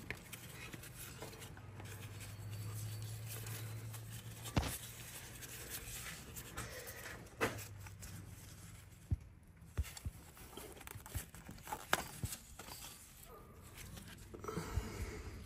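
Hand-handling noises as a multi-ribbed auxiliary (alternator) belt is worked off the engine's pulleys: rubbing with scattered light clicks and knocks.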